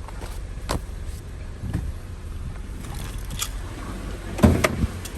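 Holden VX Commodore engine idling, a steady low hum heard inside the cabin, with a few light handling clicks and a louder knocking thump about four and a half seconds in.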